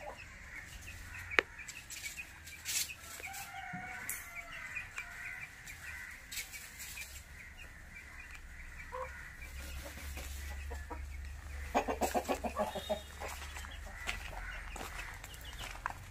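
Aseel chickens clucking, with a quick run of clucks about three-quarters of the way through, and one sharp click about a second and a half in.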